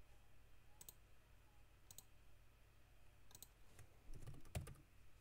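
Faint clicks of a computer mouse and keyboard: single clicks about a second apart, then a quick cluster with a soft thump near the end.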